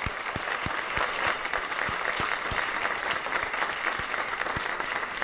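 Studio audience applauding steadily, energetic and sustained, with faint low thuds about three times a second underneath.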